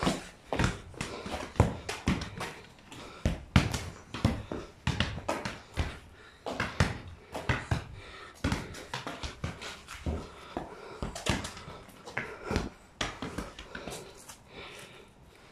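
A small toy football being kicked against a brick wall and bouncing on concrete: an irregular run of sharp knocks, one to three a second.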